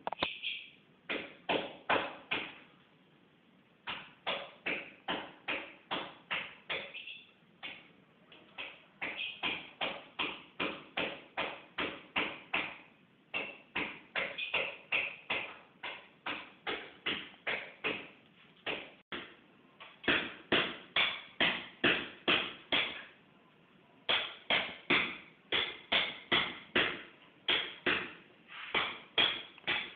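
Repeated sharp taps or knocks, about three a second, in runs of several seconds broken by short pauses, typical of a hand tool striking while shaping the work.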